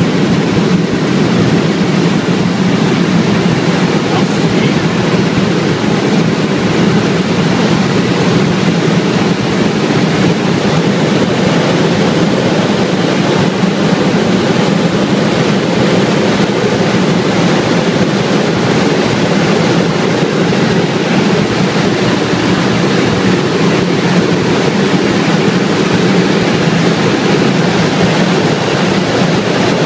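Steady, loud cabin noise of a Bell LongRanger helicopter in flight: its turboshaft engine and rotors running without letting up.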